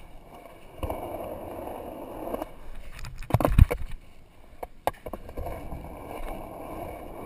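Skateboard wheels rolling over concrete, a steady rumble dulled by the camera's waterproof housing. About halfway through the rolling drops out and there is a loud clattering knock of the board, then the rolling starts again.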